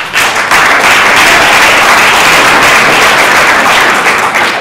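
Audience applauding. Scattered claps build within the first half second into loud, steady applause, which eases slightly near the end.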